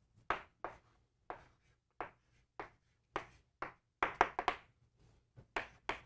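Chalk on a blackboard writing out a long number: a string of short, sharp taps and strokes, several bunched quickly together about four seconds in.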